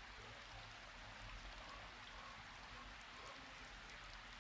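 Near silence: faint steady hiss with a low hum, room tone.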